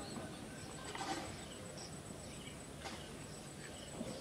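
Faint outdoor ambience: scattered small bird chirps over a low hiss, with a light knock about a second in and another near three seconds.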